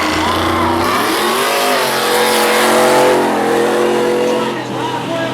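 Pickup truck engines revving hard under full acceleration during a drag race, their pitch sliding up and down through gear changes. The sound grows louder about three seconds in and eases slightly near the end.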